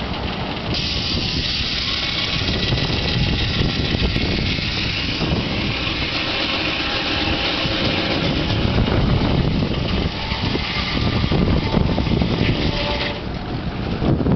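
Steam-engine-powered sawmill running. The engine's low running sound continues throughout. A steady high rushing noise starts about a second in and cuts off near the end.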